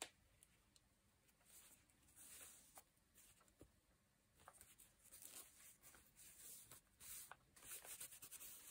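Near silence, with faint paper rustling as hands press and smooth a glued fabric-and-paper piece flat onto a journal page, growing busier about halfway through, and a few small clicks.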